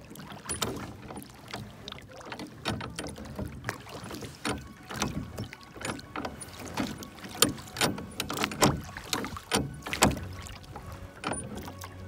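Wooden oars rowing a small rowboat: the blades dip and splash in the water, with many irregular splashes and knocks as the oars work.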